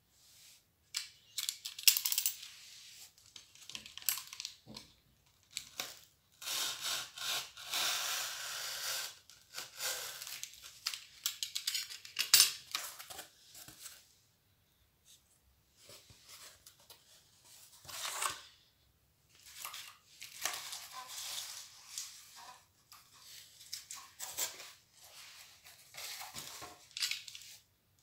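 A cardboard sheet being handled, moved and dragged on a hard floor: rustling, scraping and tearing-like noise in irregular bursts, with a few sharp clicks.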